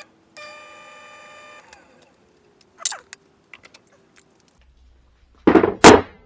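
Small electric drill motor on a drill press whining steadily for about a second, then stopping, followed by a few light clicks. Near the end, two loud knocks of steel press plates being handled on a workbench.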